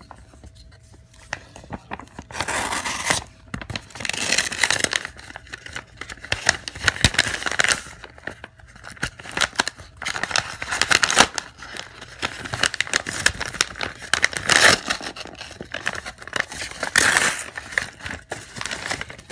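Cardboard and paper packaging being opened by hand: repeated bursts of tearing and crinkling with small knocks, stopping and starting several times.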